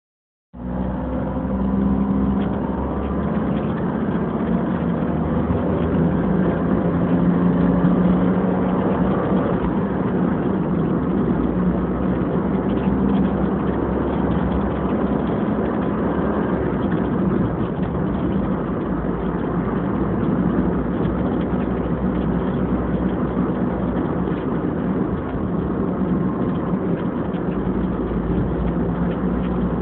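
A car's engine and tyre noise, heard from inside the cabin while driving, picked up by a tablet's built-in microphone so it sounds thin and muffled. The engine note climbs over the first several seconds as the car gathers speed, then settles into a steady drone of engine and road.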